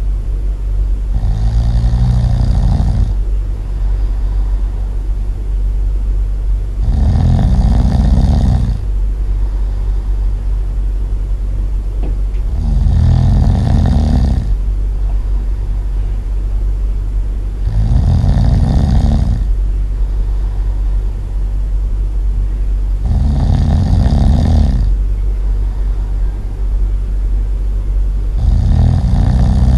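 Loud snoring in a slow, regular rhythm: one long snore about every five and a half seconds, over a steady low hum.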